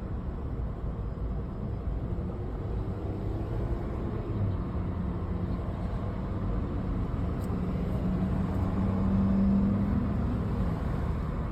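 Car engine and road noise heard from inside the cabin while driving, with a steady engine hum that swells and rises a little in pitch about eight seconds in, then eases off near the end.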